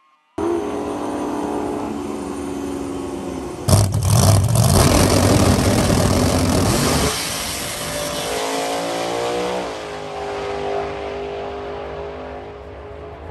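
Drag racing car engine holding a steady rev, then launching at full throttle about three seconds in with a loud blast for some three seconds, then falling in pitch and fading as the car runs away down the track.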